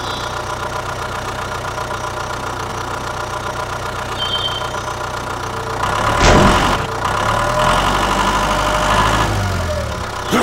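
Tractor engine idling steadily with a knocking beat, then revving up and running louder from about six seconds in, with pitch rising and falling, before easing back near the end.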